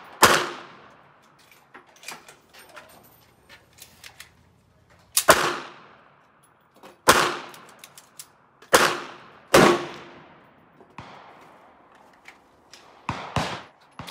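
Handgun shots: five loud, sharp reports spread over about ten seconds, each trailing off quickly, followed near the end by a few fainter reports, two of them in quick succession.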